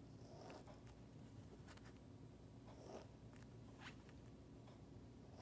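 Faint snips and crunches of scissors cutting through a slow-rise polyurethane foam squishy toy, a handful of short cuts spread about a second apart.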